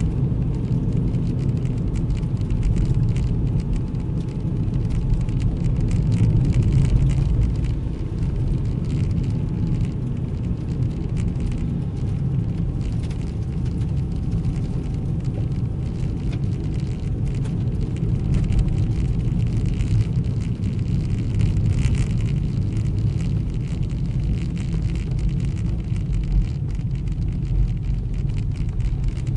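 A car driving fast on a snowy road, heard onboard: a steady heavy rumble of engine, tyres and wind, with a faint engine whine that slowly drops in pitch around the middle.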